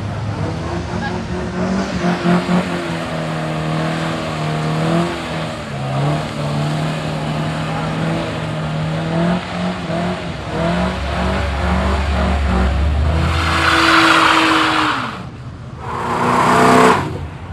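Car engine held at high revs during a burnout, its pitch steady with brief dips. The tyres squeal loudly about three-quarters of the way through and again just before the end.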